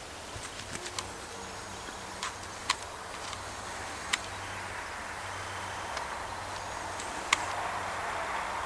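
Steady outdoor background noise, a soft hiss with a faint low hum, broken by a few sharp clicks, and swelling into a louder rushing noise near the end.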